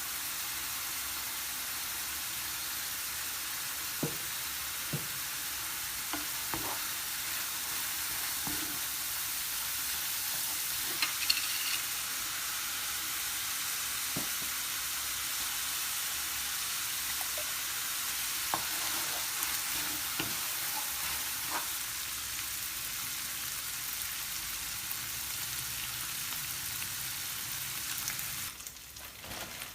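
Steady sizzling hiss with scattered light taps and clicks, cutting off sharply near the end.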